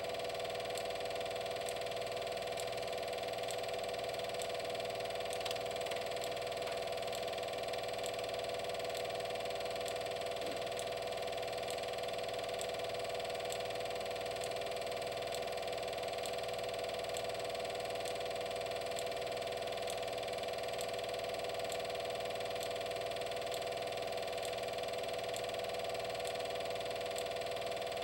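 A steady machine hum with faint ticks at an even pace, unchanging in level.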